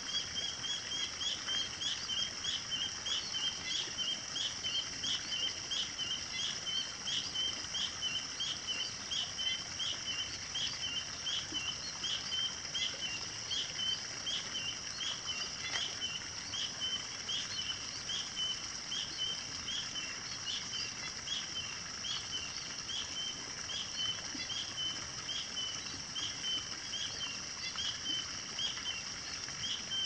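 Morning countryside nature chorus over rice fields: a steady high-pitched hum of calling animals, with a short chirp repeating about twice a second throughout.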